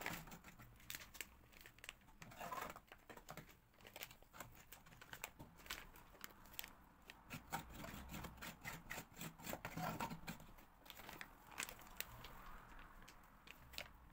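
Metal spoon stirring and scraping a stone-powder casting mix in a plastic tub: irregular light clicks and scrapes of metal against plastic, with a few soft rustling patches.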